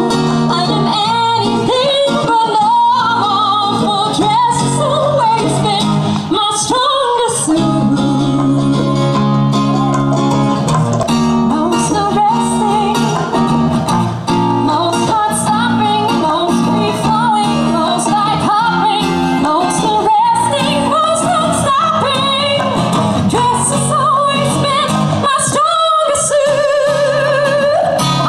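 A woman singing live into a microphone, backed by acoustic guitar. Near the end she holds a long note with vibrato.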